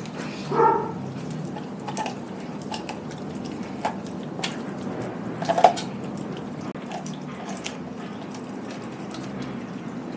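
Doberman chewing a whole raw chicken: wet, smacking chewing with scattered sharp crunches and clicks as the bones break, the loudest about half a second in and again around five and a half seconds in.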